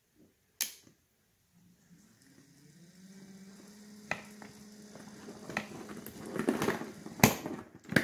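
A switch clicks on a PWM speed controller, then an electric trolling motor starts and its hum rises in pitch as it spins up before holding steady, with scattered switch clicks over it. Near the end a loud click comes as the kill-switch key is pulled, and the motor hum dies away.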